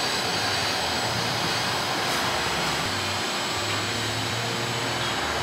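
Car wash machinery running: a steady, even rushing noise with a faint high whine over it.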